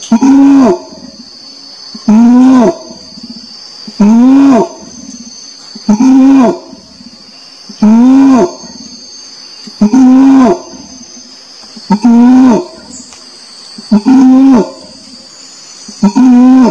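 Orangutan calling: one loud, pitched call that rises and falls, lasting under a second and repeated at a steady beat about every two seconds, over a steady high insect hum.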